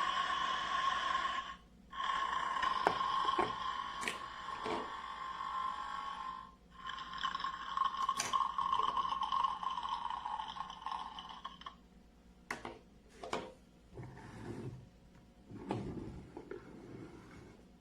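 Battery-operated Theo Klein Bosch toy espresso machine running its brewing cycle: a steady buzzing whine that runs in three stretches of a few seconds with short breaks, stopping about twelve seconds in. After that, scattered clicks and knocks of the plastic toy being handled.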